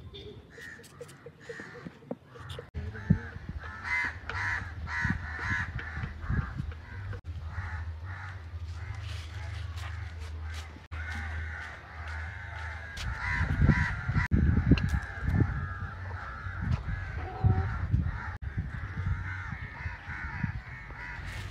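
Birds calling with harsh, repeated caws over a low hum, with a run of low thumps about two-thirds of the way through.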